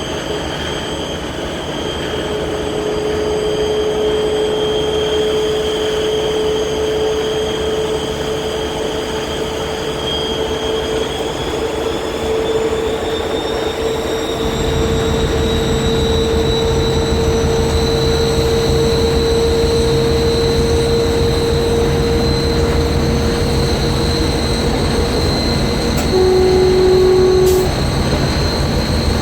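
TEP70 diesel locomotive's turbocharger whistling with a high steady whine that rises in pitch about halfway through, as the 16-cylinder diesel's low rumble grows louder. A short horn blast sounds near the end.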